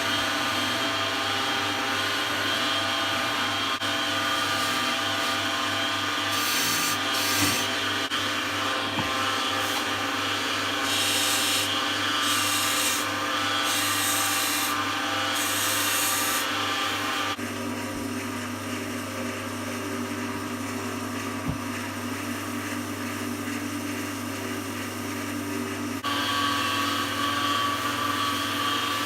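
Wood lathe running steadily while a turning tool cuts the spinning wood in several scraping bursts. The lathe's hum drops lower about two-thirds of the way through and rises again near the end.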